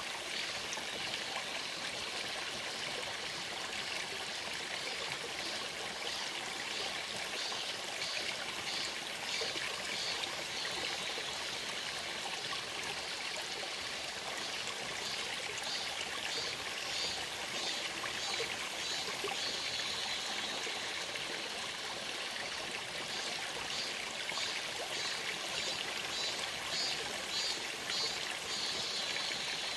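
Shallow stream running over rocks: a steady, even rush and trickle of water. Several times a high, rhythmic pulsing at about two beats a second rises over it for a few seconds and fades again.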